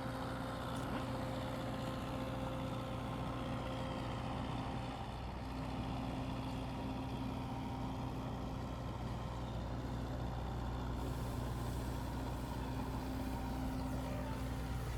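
Truck engine running steadily at idle, a low even hum that holds without change.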